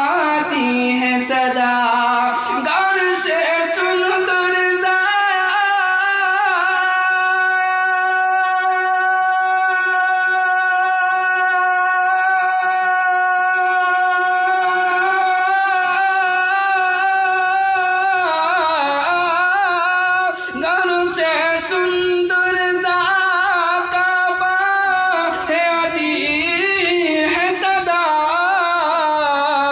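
A man singing an Urdu naat (devotional song in praise of the Prophet) in a high voice. About five seconds in he holds one long, wavering note for roughly twelve seconds, then moves into a more ornamented line with quick turns.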